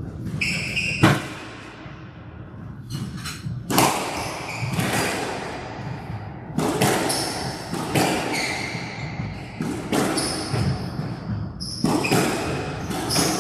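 Squash rally: the ball cracks off racquets and the walls every one to three seconds, with shoes squeaking on the court floor between shots.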